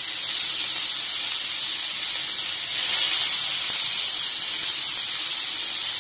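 Raw beef mince sizzling steadily in a hot, oiled frying pan, just added to the pre-heated oil, swelling slightly about three seconds in.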